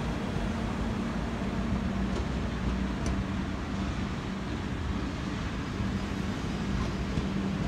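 Indian Railways passenger coaches rolling past: a steady rumble of wheels on the rails with a low hum underneath and a couple of faint clicks.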